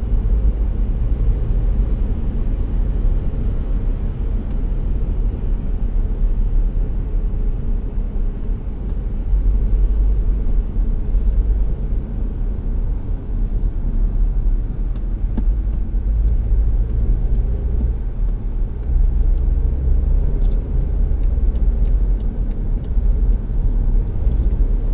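Steady low rumble of a car driving, heard from inside the cabin: engine and tyre noise that swells and eases a little now and then.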